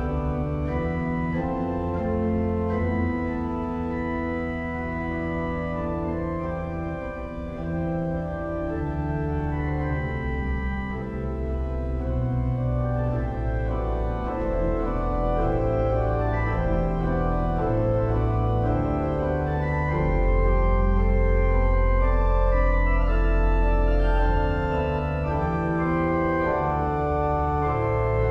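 Church organ playing slow, sustained chords over low pedal bass notes, with a very deep bass note held for about four seconds around twenty seconds in, where the music swells.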